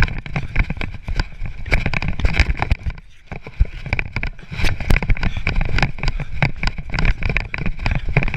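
Wind buffeting an action camera's microphone as a runner moves fast, with rapid footfalls and thumps of the body and hands, easing off briefly about three seconds in.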